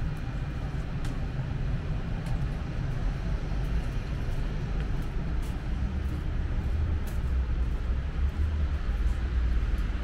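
Steady low rumble of city street traffic, with a few faint clicks scattered through it.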